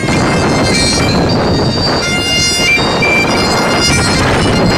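Great Highland bagpipes played by a street piper, a tune with notes changing every fraction of a second, over loud steady background noise.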